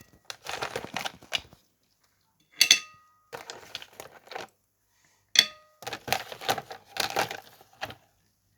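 Ice cubes being set down on a plate resting on top of a glass: rattling and scraping, with two sharp clinks that ring briefly, about a third and two-thirds of the way through.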